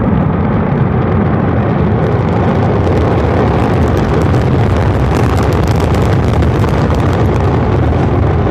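Orbital Sciences Antares rocket exploding and burning on the launch pad: a loud, steady, deep rumble with dense crackling on top.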